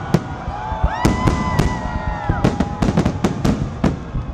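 Fireworks salute: many shells bursting in rapid, irregular bangs and crackles, with a held high tone from about a second in to just past two seconds.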